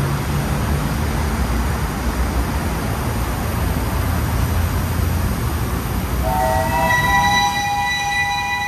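Steam locomotive whistle sounding a chord of several notes from about six seconds in, held to the end, over a steady rushing noise with a low rumble.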